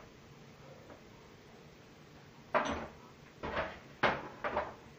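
Quiet at first, then about four knocks and clatters of kitchenware being handled, as cups and a tray of ingredients are moved about on the stovetop, starting about halfway in.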